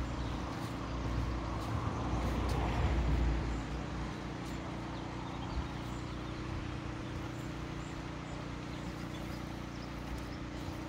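Canal boat's engine running steadily as the boat moves slowly ahead out of a lock, briefly louder around two to three seconds in.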